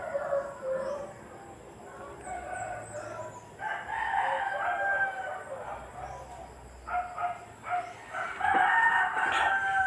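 A few long pitched animal calls, the last and loudest near the end.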